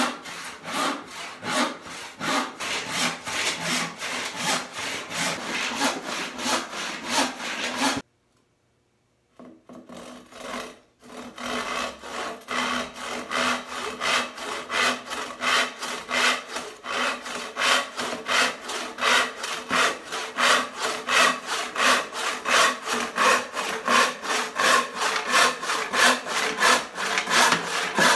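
Handsaw ripping a walnut board along the grain in steady back-and-forth strokes, about three a second. The sawing breaks off for about three seconds some eight seconds in, then carries on.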